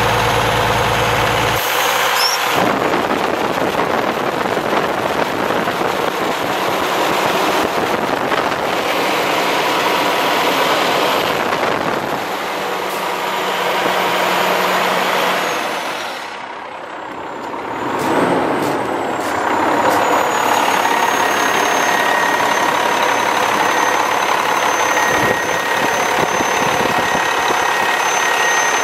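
Cummins ISM inline-six diesel engine running, heard close up in the open engine bay. A deep low rumble drops away about two seconds in, leaving a steady rushing noise with a faint high whine, which dips briefly in loudness about two-thirds of the way through.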